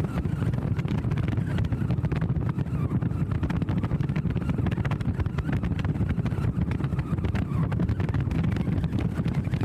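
A car driving along a road with a steady low rumble, and wind rushing over the microphone of a camera mounted on the outside of the car.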